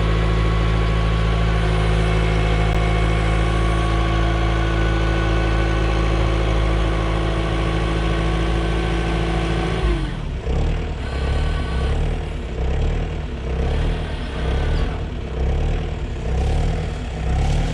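Diesel engine held at steady high revs, then throttled down about ten seconds in, its note dropping to an uneven, pulsing lower-speed run.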